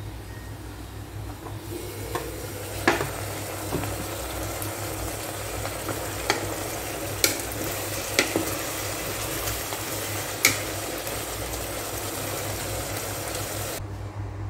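Chicken liver in soy sauce sizzling steadily in an electric rice cooker's inner pot while a wooden spatula stirs it, knocking sharply against the pot several times. A steady low hum runs underneath, and the sizzling cuts off near the end.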